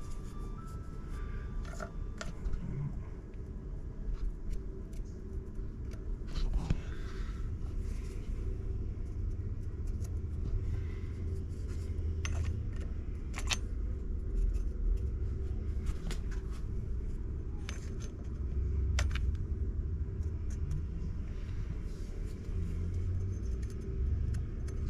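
Scattered small clicks and clinks of hand work on loose parts, over a steady low hum.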